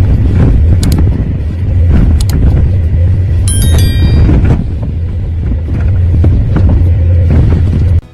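Loud, steady low mechanical rumble with scattered knocks, starting and stopping abruptly.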